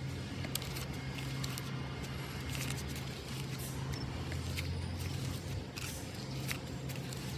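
Scotch eyed wood auger bit being turned by hand into rotten wood, making scattered crackles and scraping clicks as the cutters bite, over a steady low hum.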